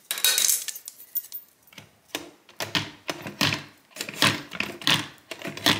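Quick clicks, taps and clacks of small hard objects being handled, sparse at first and coming thick and fast from about two and a half seconds in.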